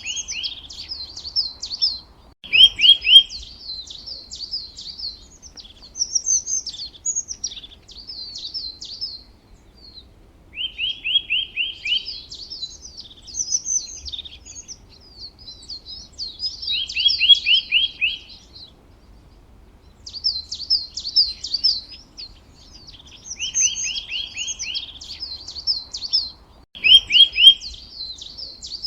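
Songbird singing: repeated phrases, each opening with a quick run of a few clear notes and going on into a higher, rapid twittering warble, with short pauses between phrases.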